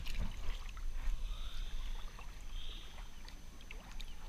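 Shallow water sloshing and splashing lightly around a hand releasing a small croaker, with scattered drips and small ticks over a low rumble.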